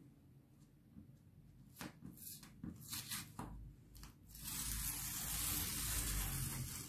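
Paper masking tape being peeled off a cotton towel: a few small crackles, then, about four seconds in, one long continuous rasping rip as the strip comes away.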